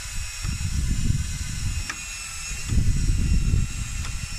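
Wind buffeting the microphone, a gusty low rumble that swells and fades, with a couple of faint clicks.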